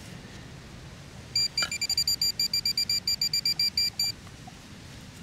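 Handheld metal-detecting pinpointer beeping rapidly at one fixed high pitch, about six beeps a second, for nearly three seconds starting a little over a second in: the alert that its probe is close to a buried metal target.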